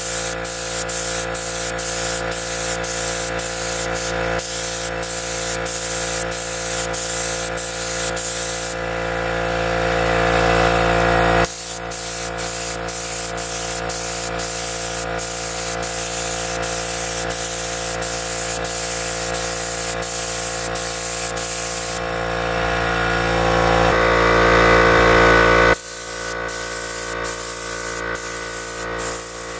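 Electric paint sprayer in use: a steady hiss of air and paint from the spray gun over a steady motor whine, with frequent short breaks in the hiss, about twice a second.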